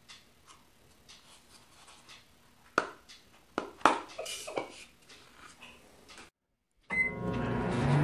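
A few sharp plastic clicks as the flip-top lid of a microwave tea kettle is handled and snapped shut. After a brief gap near the end, a microwave oven starts running with a steady hum.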